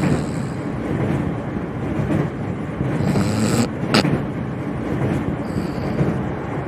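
Train carriage running with a steady low rumble, a woman's snoring coming and going over it. A sharp click about four seconds in.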